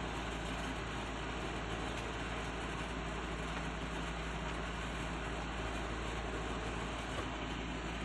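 Steady background noise, an even hiss with a low hum underneath, with no separate sounds standing out from it.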